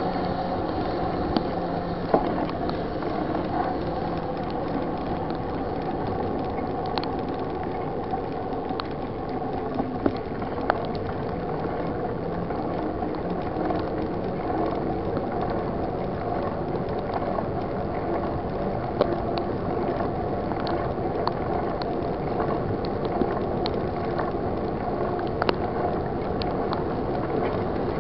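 Mountain bike ridden on a wet road in heavy rain: a steady rush of tyre spray and rain, with scattered clicks and rattles from the bike.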